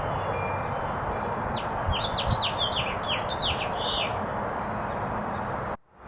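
A small bird singing a quick run of short, high, falling chirps over a steady rushing outdoor background noise. The audio cuts off suddenly near the end.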